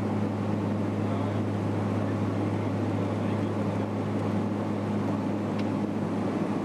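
Aircraft engine running steadily, heard from inside the cabin: an unbroken drone with a low hum.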